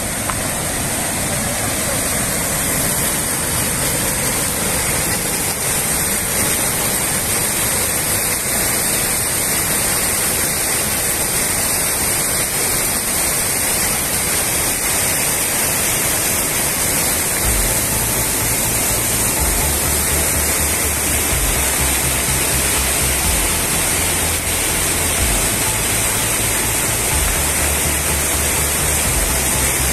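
A large waterfall crashing into its plunge pool, a loud, steady rush of falling water. From about 17 seconds in, low bass notes stepping between pitches come in under it, like background music.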